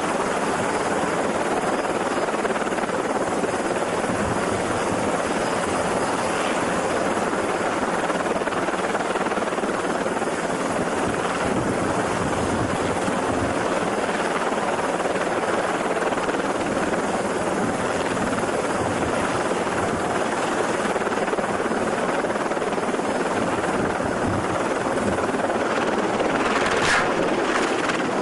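A light helicopter running steadily on a ship's deck, its engine and rotor going without letting up. A brief, sharper noise stands out near the end.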